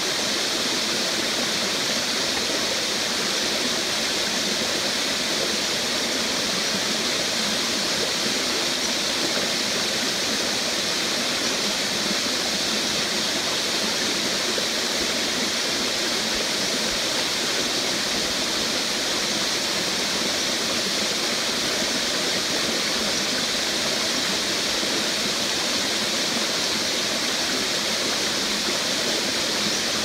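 Shallow forest stream splashing down small cascades over rocks and mossy fallen logs: a steady, even rush of water.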